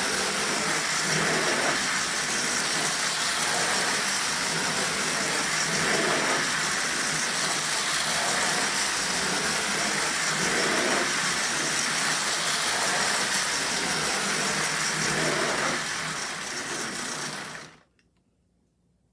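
Lionel No. 2065 4-6-4 toy steam locomotive and its train running on O27 tin track: a steady motor hum and wheel rumble that swells slightly about every two seconds. It drops away to near silence near the end.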